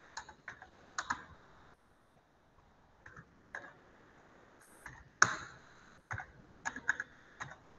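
A dozen or so short, sharp clicks and taps at irregular intervals, some single and some in quick clusters, the loudest about five seconds in.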